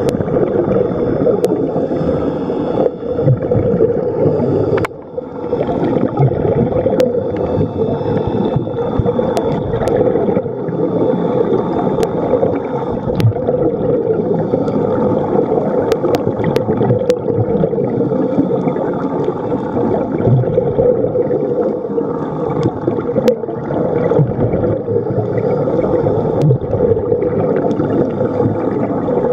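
Muffled, steady underwater rumble with gurgling bubbles and scattered faint clicks, as picked up by a camera in a waterproof housing during a scuba dive.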